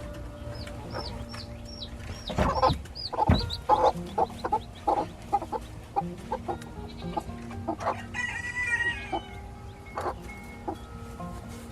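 Chickens: a quick run of high, falling peeps from chicks in the first few seconds, then hens clucking, with a louder pitched call a little after the middle. Faint background music runs underneath.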